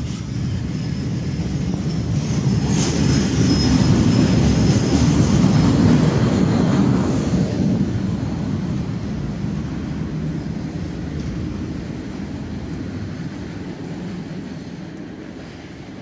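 Subway train passing through the station: a low rumble that builds to its loudest about five seconds in, then slowly fades away, with a faint high wheel squeal about three seconds in.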